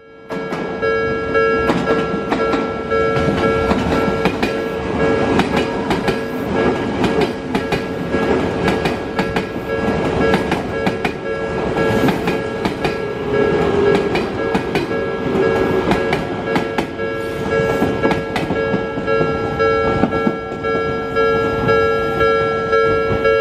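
Level crossing warning bell ringing steadily while an Odakyu commuter train rolls over the rail joints, a rapid clatter of wheel clicks over the bell's tones.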